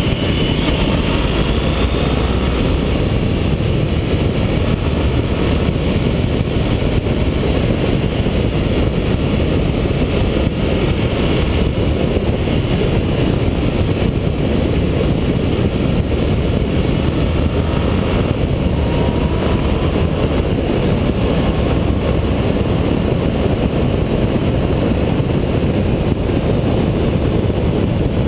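Honda ST1300's V4 engine running at road speed under heavy wind rush, steady throughout, with a faint rising and falling whine about two-thirds of the way through.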